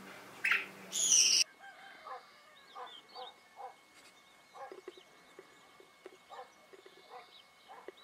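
A budgerigar's loud, high chirps, twice in the first second and a half. The sound then changes abruptly to fainter outdoor birdsong: a scatter of short calls, a few a second.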